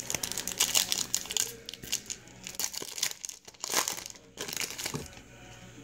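Foil trading-card pack being torn open and its wrapper crinkled in the hands: a run of sharp crackles that dies away about five seconds in.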